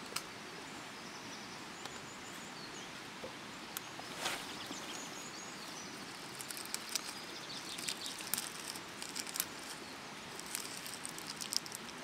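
A knife blade scraping and shaving fine curls off a sheet of birch bark: a run of short, dry scratches that grows denser in the second half. A steady outdoor hiss lies underneath, with a few faint bird chirps in the first seconds.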